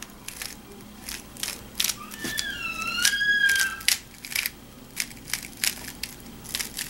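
Aolong v2 3x3 speedcube turned fast through a PLL algorithm: a quick run of sharp plastic clicks as the layers snap around. About two seconds in, a high wavering squeak rises and falls for nearly two seconds over the clicking.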